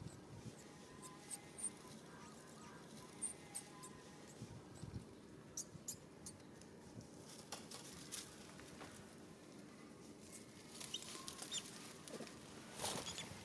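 Faint, short high-pitched animal squeaks and chirps in a few small clusters, with scattered light clicks and rustles over a quiet steady background.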